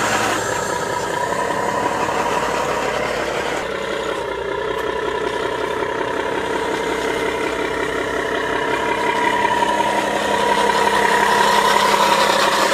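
Diesel truck engine sound from radio-controlled scale trucks, running steadily. It changes abruptly about four seconds in and grows louder near the end.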